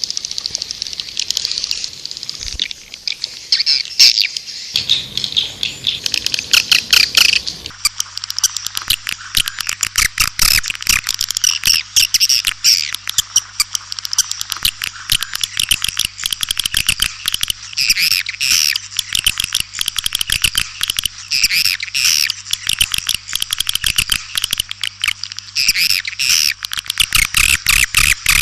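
White-nest swiftlet calls played as a swiftlet-house lure recording: dense, high chattering twitters and rapid clicking chirps. About eight seconds in, the clicking turns faster and denser, over a faint steady low hum.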